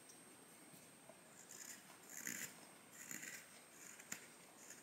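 Faint scraping of a carving knife paring shavings from a block of plane-tree wood, two strokes about a second apart, with a light click near the end.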